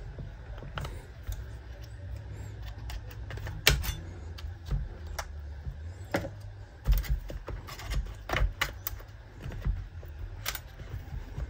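Scattered sharp metal clicks and taps of needle-nose pliers working at a chainsaw's oil pump on the clutch side of the crankcase, over a low steady hum.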